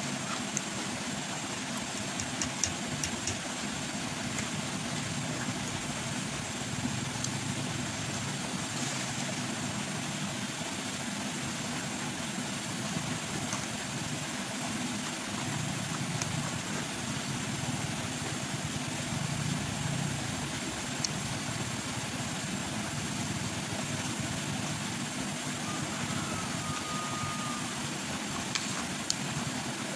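Raw vegetables being bitten and chewed, a few faint crunches scattered over a steady low rumble and hiss.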